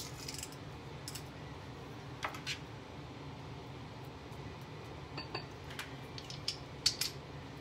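Scattered light clicks and clinks of a metal garlic press and utensils against a glass bowl as whole garlic cloves are pressed, the sharpest click about seven seconds in, over a low steady hum.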